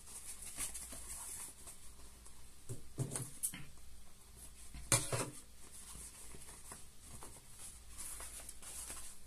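Faint handling noises: soft rustles and a few light knocks, the sharpest about five seconds in, over a steady low hiss.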